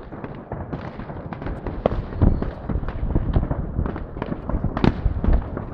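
Fireworks and firecrackers going off all around: many irregular, overlapping bangs and crackles, with a louder bang about five seconds in.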